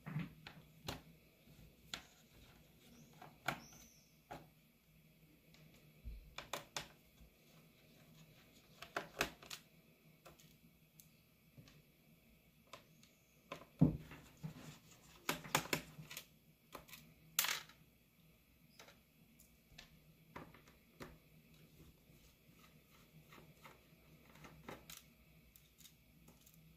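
Small clicks and taps of a Phillips screwdriver and plastic laptop case being handled, at irregular times, with a few louder knocks about halfway through.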